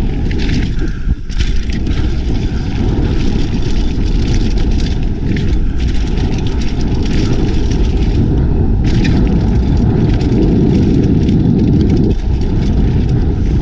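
Mountain bike riding fast down a dirt trail: a loud, steady rumble of wind on the microphone and tyres on the ground, with scattered clicks and rattles from the bike.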